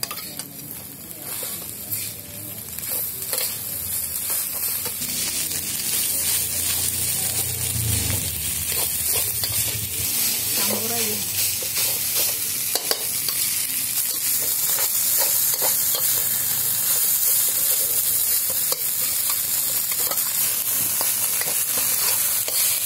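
Fried rice with squid ink sizzling in a wok while a metal spatula stirs and scrapes it, with many short clicks of the spatula against the pan. The sizzle grows louder over the first few seconds, then holds steady.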